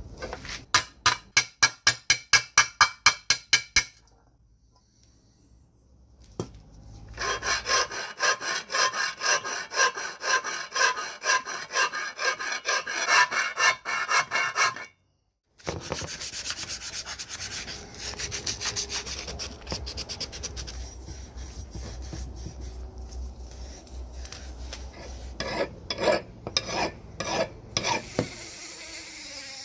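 Hand scraping strokes on the cast metal cover of a chain hoist, quick and rhythmic at about three to four a second, in several runs with short pauses.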